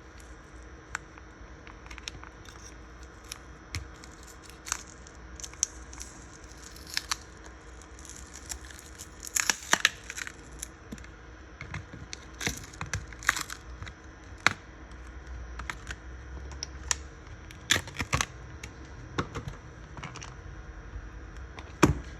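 Hands working on a BlackBerry phone during a repair: irregular small clicks, taps and short scratchy strokes, with louder clusters about ten seconds in and again near the end.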